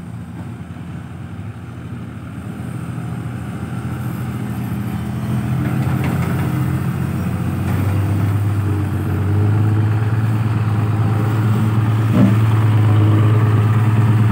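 Diesel engine of a loaded Mitsubishi Fuso Fighter six-wheel dump truck running as the truck pulls up, its steady low drone growing louder as it comes close, loudest in the second half.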